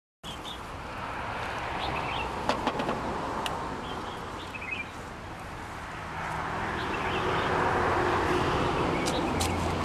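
Outdoor background of vehicle noise that swells, fades and swells again, with short bird chirps and a few sharp clicks over it.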